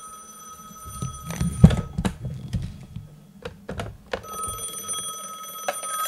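Ringer of a Northern Telecom 500 rotary telephone ringing in two bursts, striking only one of its two gongs because its volume wheel is turned down, a thin sound like a princess or trimline phone. Between the bursts come knocks and a sharp thump, the loudest sound, as the phone is handled.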